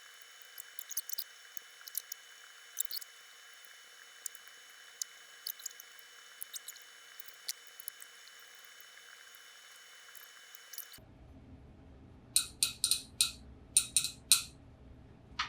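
A 13 mm flex-head ratchet clicking as nuts on a VW air-cooled engine are tightened. Light, scattered metallic clicks come first, then near the end a quick run of about seven sharp ratchet clicks.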